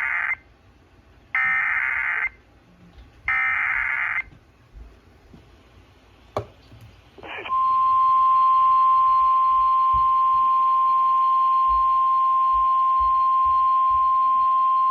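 Emergency Alert System activation: three bursts of the SAME digital header, a harsh warbling data screech, each about a second long and about a second apart. After a click, the single steady 1050 Hz National Weather Service warning tone starts about halfway through and holds.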